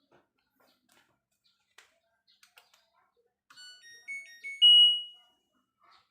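LG front-loading washing machine's control panel playing its short electronic power-on tune: a few stepped beeps, then a loud held high tone, after some faint clicks. The panel is coming on again after the repair.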